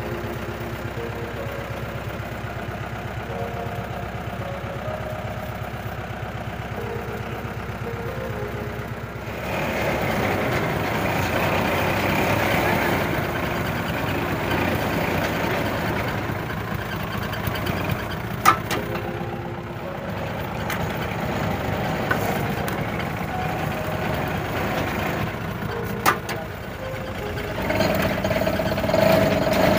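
Engine of a rope-winch machine used for pulling a submersible pump from a borewell, running steadily as it drives the winch drum. It grows louder about a third of the way through, with two sharp clanks later on.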